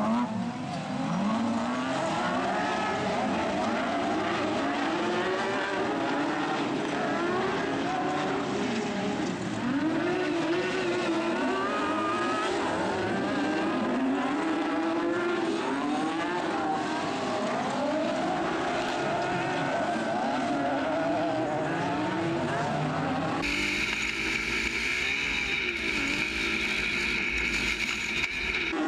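Several autocross Super Buggy engines racing together, heard from trackside, their notes overlapping and rising and falling as the buggies accelerate, shift and lift for corners. About 24 seconds in, the sound cuts abruptly to a single close-up engine, steadier, with a high whine over a heavy low rumble.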